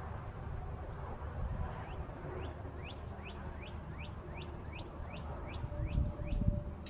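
A songbird singing a rapid, even series of about a dozen short, high sliding whistled notes, about three a second. It lasts about four seconds, over a steady low outdoor rumble that gusts up near the end.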